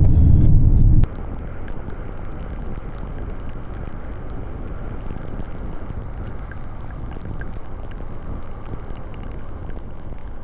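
Wind rumbling on the microphone, cut off abruptly about a second in. Then a quieter steady hiss with faint scattered ticks.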